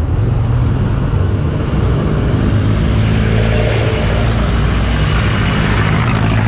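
A road vehicle being driven steadily: a low engine hum with road noise at an even level.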